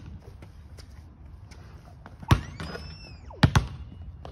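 Basketballs bouncing on a concrete driveway: one thud a little over two seconds in and two quick ones about a second later, with a faint high gliding sound between them.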